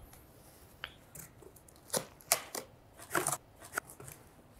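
Cardboard box being handled and its top flap pulled open: a string of short, sharp cardboard scrapes and snaps, most of them between about two and four seconds in.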